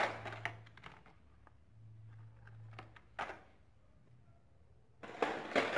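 A plastic blister-pack toy-car card set down on other carded cars with a sharp click, then a few light plastic clicks. Near the end comes a crinkly rustle of the packaging being handled.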